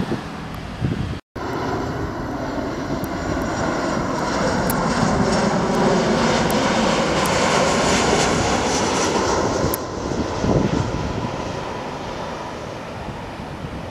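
Boeing 737 jet airliner on landing approach passing low overhead, gear down. Its engine noise builds to a peak midway and then fades away.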